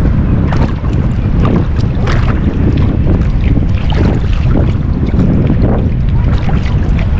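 Wind buffeting the microphone in a steady low rumble, with small water splashes and slaps every half second or so.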